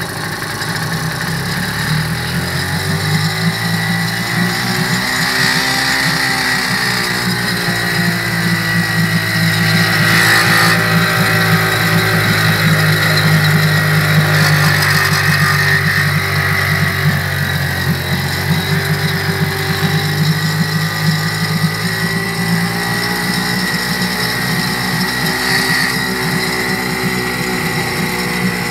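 1965 Johnson 3 hp two-stroke outboard motor running in a test barrel of water, its engine speed rising and easing off a few times.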